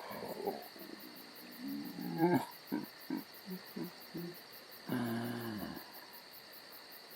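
A man's voice sobbing in short broken sounds about two seconds in, then a longer drawn-out groan about five seconds in: the crying of the wolf, voiced by an actor. Underneath runs a steady, high chirring.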